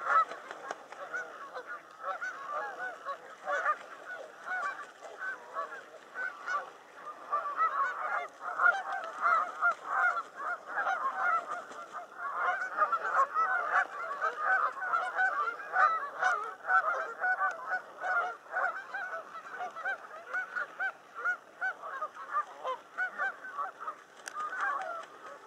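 A flock of Canada geese honking without pause, many calls overlapping, busiest through the middle.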